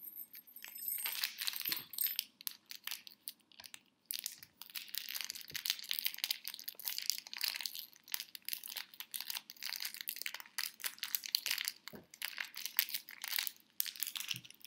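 Small sheet of wrapping paper crinkling and tearing as a tiny gift is unwrapped by hand: a dense run of small crackles, with a brief pause about four seconds in.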